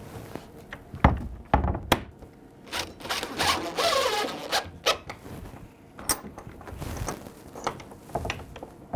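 Metal thumb-latch parts handled and fitted against a pine door: a few sharp knocks and clicks, with a stretch of scraping in the middle.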